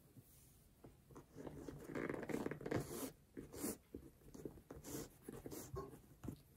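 Faint rustling and scraping of a flat shoelace being pulled through a sneaker's metal eyelets, in short irregular strokes that begin about a second and a half in.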